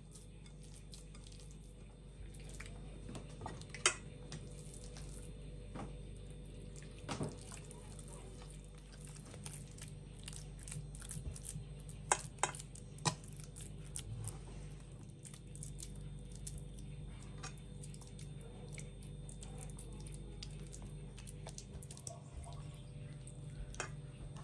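Hands squelching and kneading a moist walnut-and-grated-onion filling, then packing and rubbing it into a raw whole chicken in a cast-iron pan, with scattered sharp clicks and taps against the glass bowl and pan. A steady low hum runs underneath.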